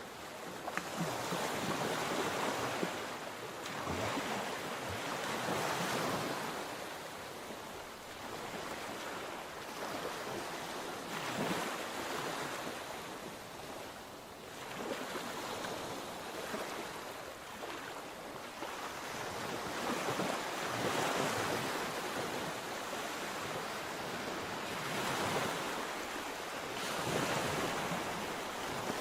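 Mediterranean sea waves washing onto the shore, a continuous surf hiss that swells and fades every few seconds as each wave breaks.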